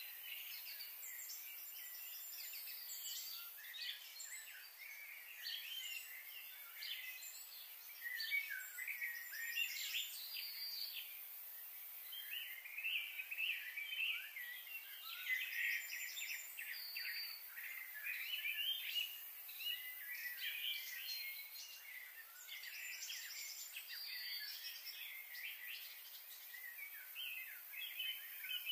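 Many small birds chirping in the surrounding trees, short overlapping calls coming in busier spells, over a steady faint high hiss.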